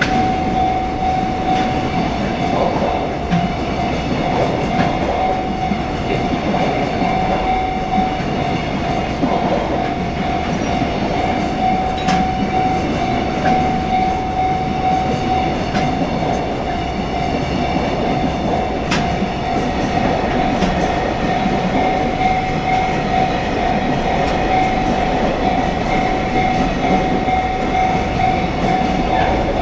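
Japanese level-crossing warning bell ringing without a break on one steady pitch, over the rumble and clickety-clack of a train passing over the crossing, with a few sharp clacks from the wheels.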